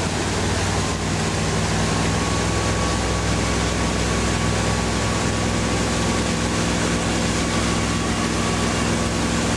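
Motorboat engine running steadily at speed while towing an inflatable tube, a constant low hum under the rush of wind and churning water.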